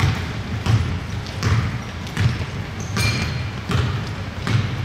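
Basketball being dribbled on a hardwood gym floor: a steady run of bounces, about one every three-quarters of a second.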